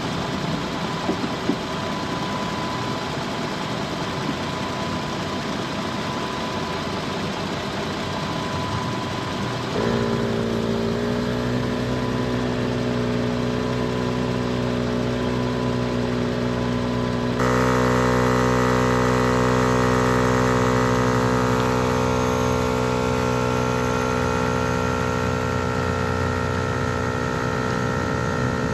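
Truck engine idling. About ten seconds in, a VIAIR 440P portable 12-volt air compressor starts and runs with a steady hum, inflating an aired-down tyre. The hum grows louder about halfway through.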